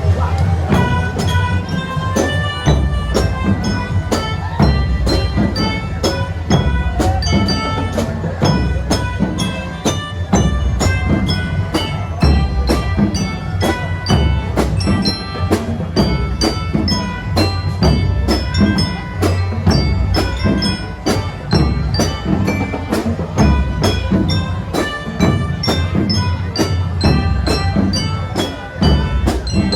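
Marching band playing a piece: drums keep a steady beat under a melody of ringing mallet-percussion notes.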